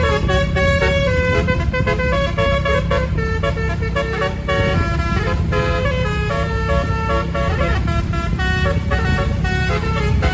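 Indonesian bus 'telolet' (basuri) multi-trumpet musical horn playing a quick tune of stepped notes over the low rumble of the bus. The tune is pleasant, but the horn trumpets sound a bit odd to the uploader.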